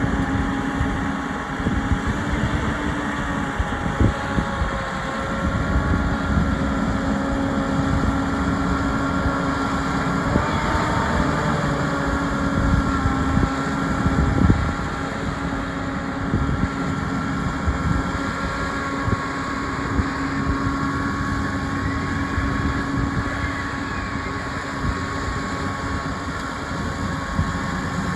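Tractor engine working steadily under load while ploughing, a constant drone with a brief shift in pitch about ten seconds in.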